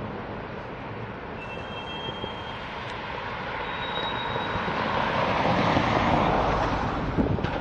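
Freight train of loaded steel-plate bulkhead flatcars moving slowly, a steady rumble from the wheels and cars that grows louder about six seconds in. Twice a brief faint high wheel squeal rises above it.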